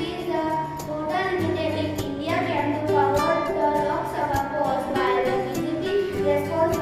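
Children singing a song over instrumental accompaniment with a steady beat.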